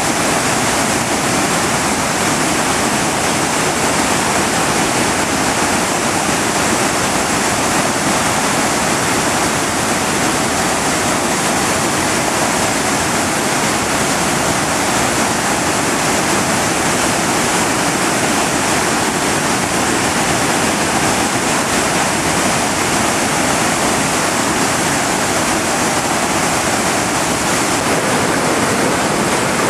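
Floodwater pouring over a low concrete dam and churning in the whitewater below: a loud, steady rush of high water.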